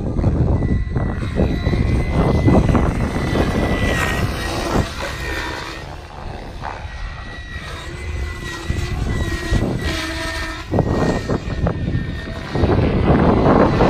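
Kraken electric RC helicopter in flight: a steady high motor whine over the rush of the rotors, fading about halfway through and swelling again near the end as it flies around.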